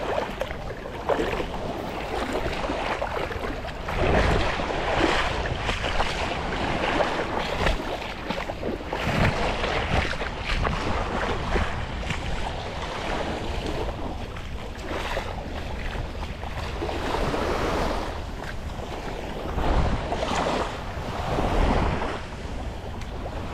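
Small waves washing up on a sandy beach, mixed with wind buffeting the microphone; the noise swells and fades every few seconds.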